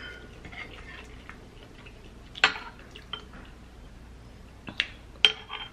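Metal spoon clinking against a glass bowl of gumbo, three sharp clinks, the last ringing briefly. Faint crackling early on.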